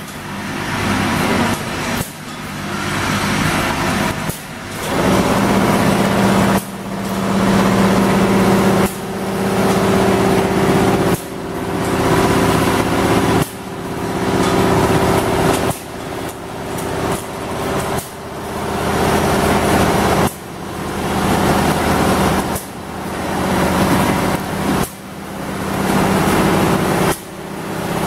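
Automatic eye drop bottle filling, plugging, capping and labeling machine running, with a steady motor hum. The sound goes in a repeating cycle about every two seconds, building up and then cutting off sharply.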